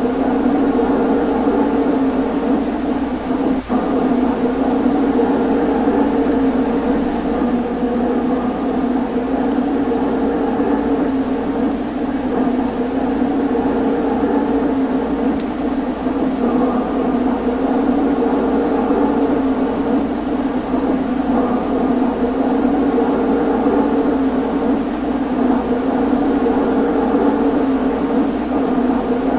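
HO scale model electric trains running on a catenary-powered layout: a steady mechanical hum of the locomotive motors and wheels on the rails, with one brief click about three and a half seconds in.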